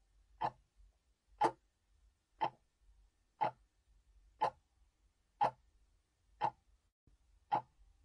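Sharp ticks like a clock's, evenly spaced at about one a second and all alike: a ticking sound effect.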